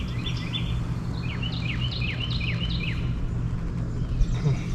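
A bird chirping outdoors, a quick series of short, downward-sliding notes, over a steady low hum.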